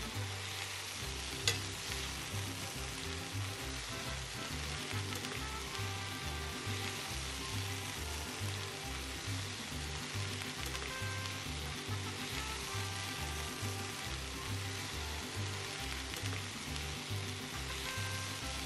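Sliced bell peppers, onion and serrano peppers sizzling in hot canola oil in a cast iron skillet, stirred and turned with tongs. A single sharp click about a second and a half in.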